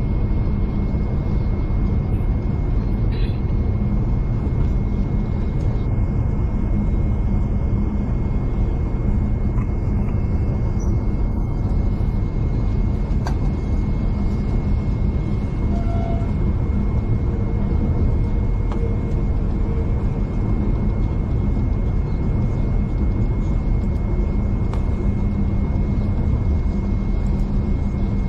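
Steady rumble of a V/Line passenger train running along the line, with a thin steady high whine over it.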